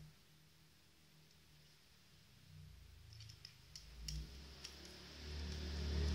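Small sharp clicks of a screwdriver and fingers working wires into the screw terminals of a motor driver board, several of them in the second half. A low rumble builds underneath from about halfway through.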